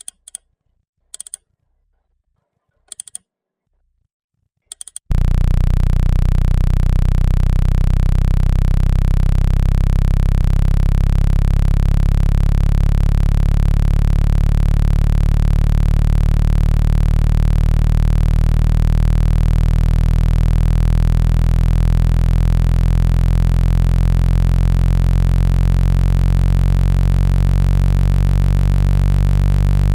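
Four short, sharp blips in the first five seconds, then a loud, steady low synthesized tone with many overtones starts about five seconds in and holds. It is a 165 Hz speaker-cleaning tone, played at full volume so the speaker's vibration shakes water and dust out of a phone speaker grille.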